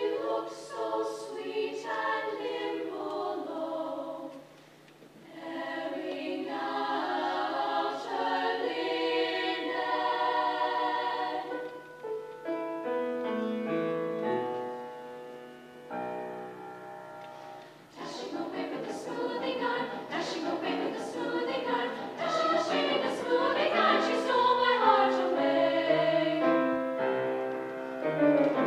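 Women's choir singing a lively British folk song arrangement with piano accompaniment. The phrases break briefly about four seconds in, and the middle is quieter and thinner before the full choir comes back.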